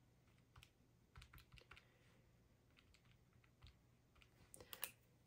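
Keys of a Casio desk calculator being pressed: faint, short clicks in a few quick runs as a sum is keyed in.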